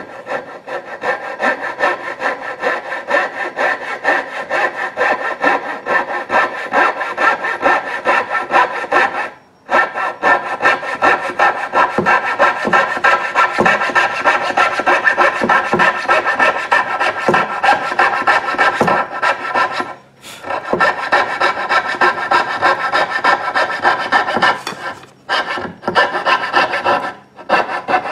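Coping saw cutting through a wooden knife-handle block in rapid, steady back-and-forth strokes, stopping briefly a few times along the cut.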